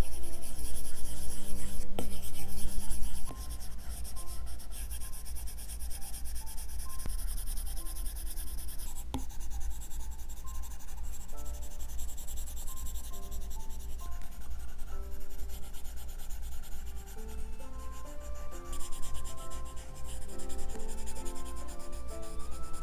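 Apple Pencil tip scratching and rubbing across an iPad Pro's paper-texture screen film in quick, closely packed strokes. The strokes are louder and denser for the first three seconds, then go on more softly.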